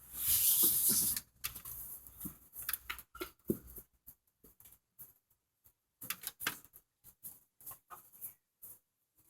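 A second-long burst of rustling noise, then scattered light clicks and rustles that grow sparser towards the end.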